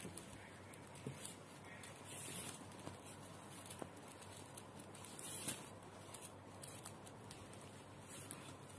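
Faint rustling and clicking of plastic tube wire strands being handled and threaded through a woven wire basket, with a few slightly louder scratches.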